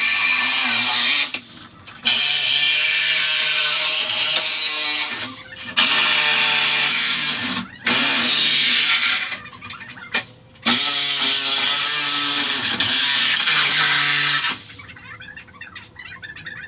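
Handheld power tool running in several bursts of one to four seconds each, stopping and starting again, with its pitch sagging a little at times as it works the metal.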